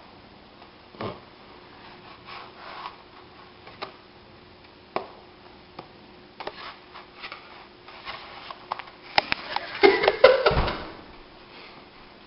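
Plastic spatula scraping and tapping on a nonstick electric griddle as pancakes are slid under and flipped: scattered short scrapes and clicks, then a louder clatter of scraping and knocks about nine to eleven seconds in.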